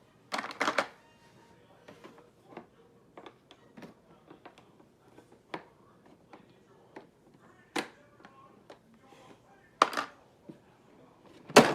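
Scattered small clicks, taps and rustles of toys and packaging being handled, with a few louder sharp knocks about half a second in, near the middle and near the end.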